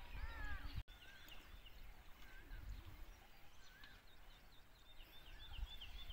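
Small birds chirping and calling over a faint low rumble, with a quick run of short, high chirps near the end.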